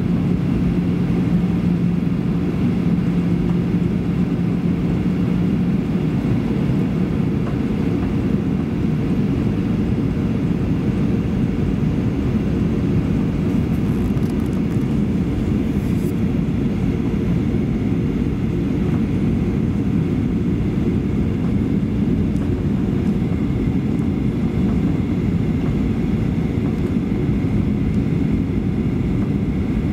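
Steady cabin noise inside a Boeing 737-800 on final approach: the drone of its CFM56-7B turbofan engines and airflow rumble, heaviest in the low range. A low hum under it fades out about six seconds in.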